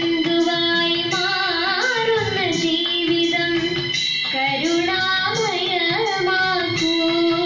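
A girl singing a Malayalam devotional song over instrumental accompaniment, with long held notes in the melody.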